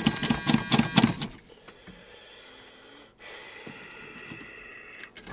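Starter cranking the engine of a 1980 Ford F-150 that has sat for a week, with an even rhythm of about six turns a second for roughly a second. The cranking stops, leaving a low, quiet stretch until the truck begins to fire near the end.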